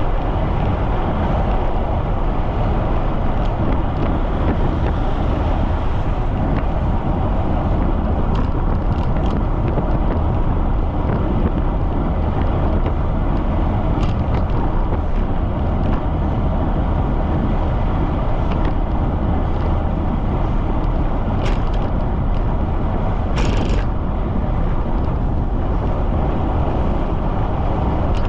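Steady rush of strong wind buffeting the microphone of a camera riding along on a fast-moving bicycle, with a few faint clicks.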